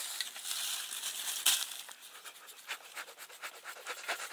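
Scratching and rustling in dry fallen leaves, made up of many short crackly strokes, with one louder sharp crackle about one and a half seconds in.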